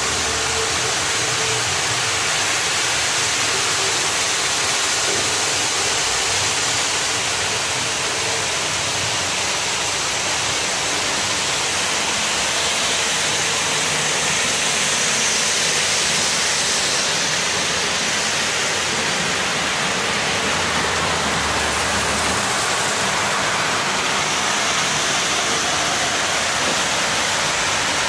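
Several model trains running at once on a multi-level layout: a steady whirring rush of small motors and metal wheels on rails, with no clear breaks.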